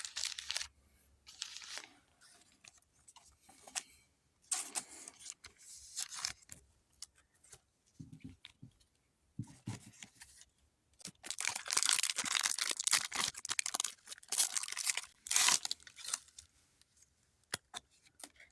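Foil wrapper of a Pokémon TCG booster pack crinkling and tearing as it is handled and ripped open, in several crackly bursts with small clicks between them.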